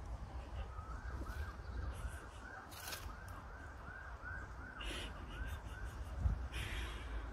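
Birds calling outdoors: a run of short calls repeated about three times a second through the middle, with a few harsher calls in between, over wind rumbling on the microphone.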